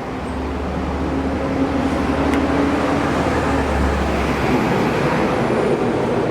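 Steady rushing noise of passing road traffic, swelling about a second in and holding over a low hum.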